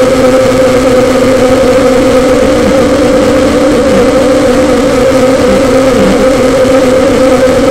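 Homemade noise instrument playing a loud, steady drone: a held pitch with a rough, grinding noise underneath, its lower tone dipping briefly now and then.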